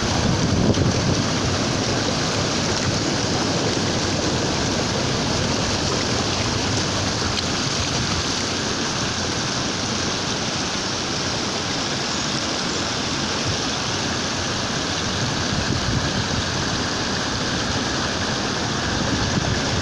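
Steady, even rush of water over a flooded road, with no change.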